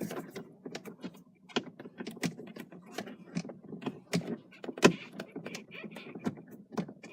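A long metal Allen key clicking and knocking against the back of a BMW E34 steering wheel as the airbag bolts are worked loose: irregular small clicks, with one louder knock about five seconds in.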